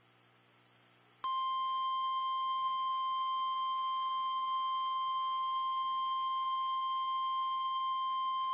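NOAA Weather Radio warning alarm tone: one steady, loud electronic tone at 1050 Hz. It starts about a second in after a moment of near silence and holds unchanged, signalling that an emergency warning is about to be read.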